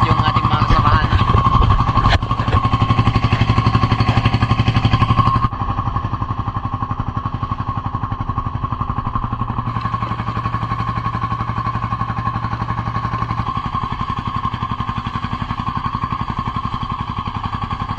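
Small boat's engine running steadily under way, a rhythmic drone that drops a little in level about five and a half seconds in.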